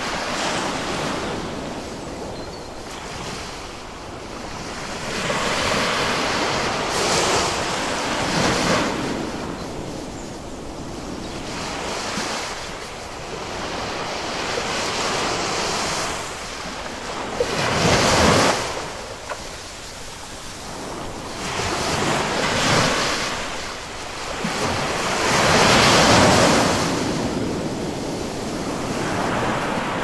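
Ocean surf: waves breaking and washing in, the rush swelling and fading every several seconds, loudest about two-thirds of the way through and near the end.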